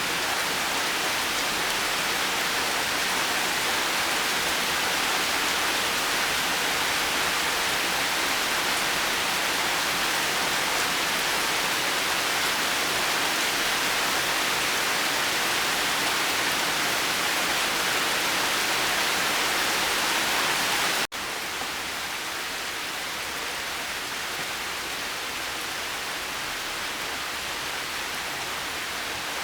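Steady, even rain hiss. About two-thirds of the way through it cuts out for an instant and comes back a little quieter, as at a splice in the recording.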